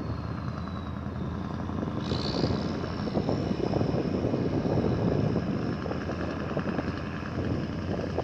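Wind buffeting the phone's microphone in uneven gusts, over a steady low machine hum.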